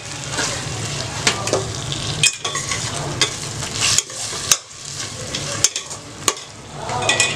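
Onion and tomato masala sizzling in hot oil in a pan while it is stirred, with scattered sharp clicks and scrapes of the utensil against the pan.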